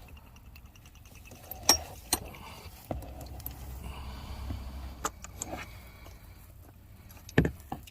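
Hand tools being handled: scattered metallic clicks and clinks, with sharper knocks about two seconds in and near the end.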